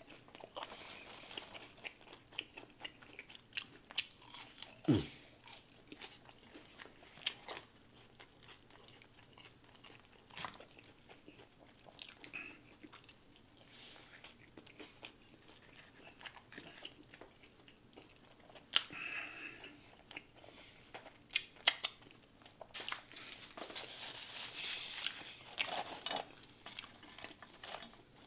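Close-miked mouth sounds of a person eating a double quarter pounder burger: chewing and biting with scattered wet smacks and clicks.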